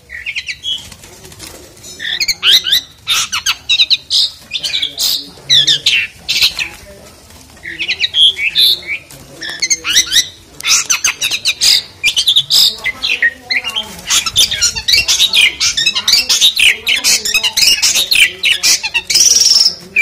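Asian pied starling singing loudly in rapid, varied phrases of harsh chattering notes and whistles. It starts about two seconds in and pauses briefly near the middle.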